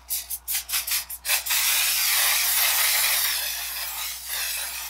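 Makeup setting spray misting onto the face: several quick short hisses, then one long steady spray hiss of about three and a half seconds that cuts off at the end.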